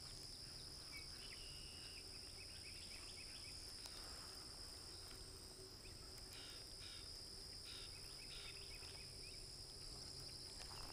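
Faint outdoor ambience: a steady high-pitched insect buzz with scattered faint bird chirps.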